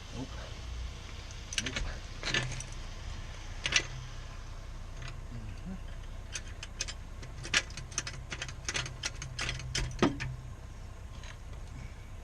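Scattered light metallic clicks and clinks of hand tools being handled, coming thickest in a quick run about halfway through, over a steady low hum.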